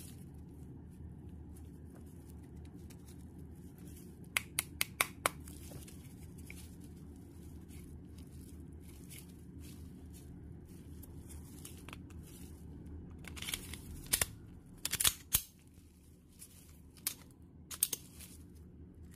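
Sharp clicks of Glock 19X pistol parts being handled and fitted together: four quick clicks about four seconds in, then a run of louder clicks in the second half as the slide and frame go back together. A steady low hum runs underneath.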